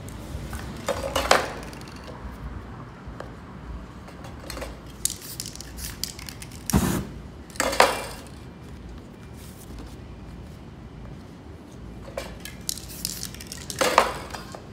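Aerosol spray-paint cans: several short hisses of spray and the clink of metal cans being handled, with paper sheets laid on and pressed against the painting.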